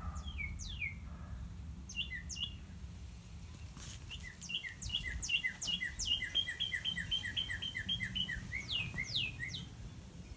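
Northern cardinal singing: steeply down-slurred whistles, then a fast, even run of repeated two-note phrases for about four seconds, ending with more down-slurred whistles. A low steady rumble lies underneath.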